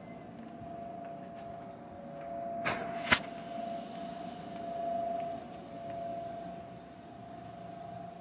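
Walking indoors on a hard floor while carrying a phone: a steady hum runs under soft handling and footstep noise. Two sharp clacks about half a second apart come near three seconds in.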